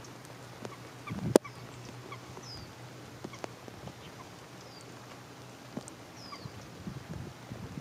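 Light rain on shallow water: a steady patter with scattered drop ticks and one sharp tick about a second in. A small bird gives a short, high, falling chirp three times.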